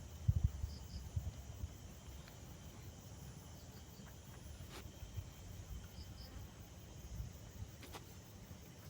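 Faint, evenly repeating chirping of insects, crickets, with low rumbling bumps, loudest about half a second in.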